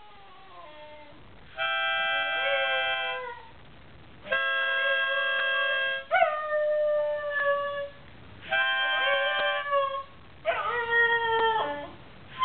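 A dog howling along to music, its howls gliding up and down in pitch. The music is an instrument playing held chords in about five short phrases with brief pauses between them.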